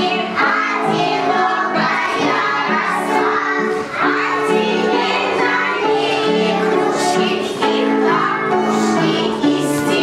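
A group of young children singing a song together to instrumental accompaniment.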